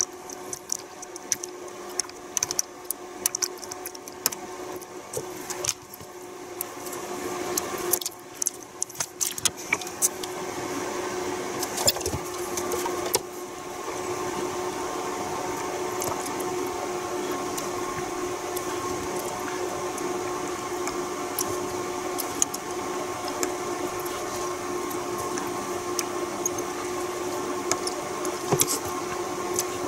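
Small clicks and light rattles of a circuit board and its resistor leads being handled during hand soldering, over a steady hum that grows louder about thirteen seconds in.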